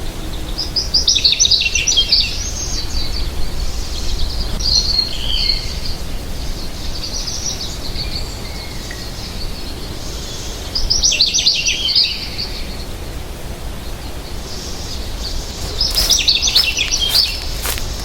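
American goldfinch singing: five bursts of rapid, high twittering warbles, with fainter twitters between them. A few sharp clicks near the end.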